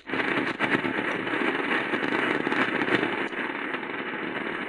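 Dense crackling static and hiss from the RRS RS-661BT portable radio's speaker, tuned off-station on the shortwave band. It cuts in suddenly, then holds steady.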